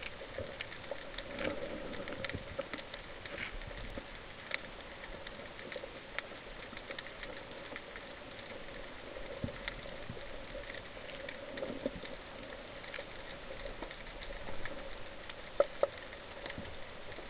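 Underwater crackling: a dense, steady patter of small clicks over a steady hum, with two sharper clicks close together near the end.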